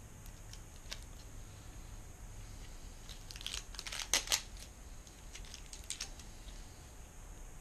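Cellophane wrapping crinkling and tearing as it is peeled off a fly rod's cork grip, with a cluster of louder, sharp crackles around the middle.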